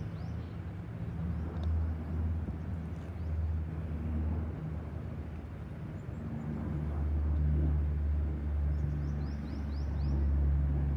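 Lockheed C-130H Hercules' four Allison T56 turboprops passing over as a steady low rumble with a low propeller hum, growing louder in the second half. A bird chirps a few times near the end.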